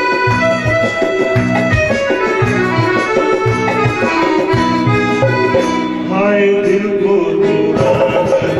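Live band playing a Hindi film song: an accordion-voiced melody, most likely from the stage keyboard, carries long held notes over a steady drum and tabla beat.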